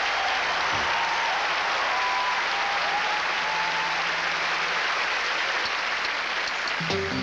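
Audience applauding steadily. Near the end the band starts playing.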